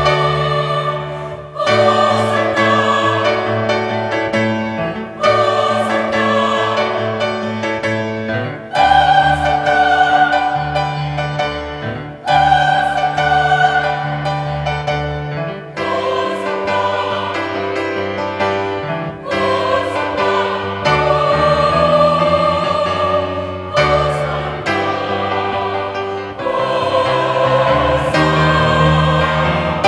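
A choir singing slow, held chords that change every few seconds, with a short dip in loudness between phrases.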